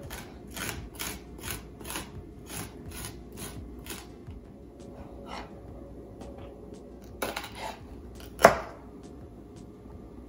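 Garlic cloves being grated on a flat metal hand grater: short rasping strokes, about three a second, for the first four seconds or so. Then two sharp knocks about seven and eight and a half seconds in, the second one the loudest.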